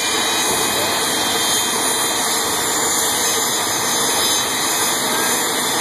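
Steady, loud roar of a jet engine, the jet-powered school bus blasting fire from its exhaust.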